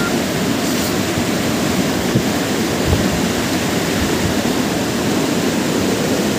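Mountain river water rushing steadily and loudly.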